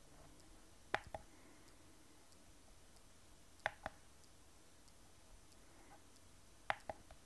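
Push buttons on a homemade diagnostic device clicking as they are pressed to step through its LCD menu: three double clicks, about three seconds apart.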